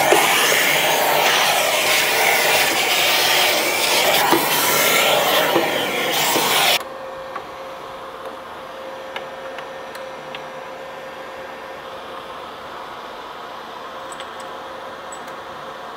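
Vacuum running loud, its hose nozzle working inside a benchtop CNC mill's enclosure, then switched off suddenly about seven seconds in. A quieter steady hum with a few light clicks follows.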